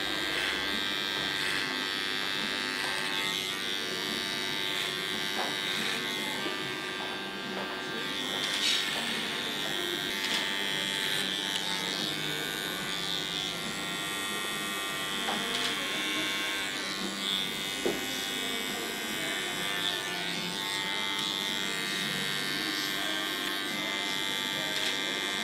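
Electric hair clipper buzzing steadily as it cuts hair close at the nape in a clipper-cut undercut, with a few faint clicks.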